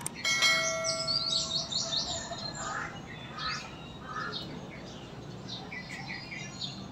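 Birds chirping throughout. Right at the start comes a click and a bell-like chime that rings for about two seconds: the sound effect of an on-screen subscribe-button animation.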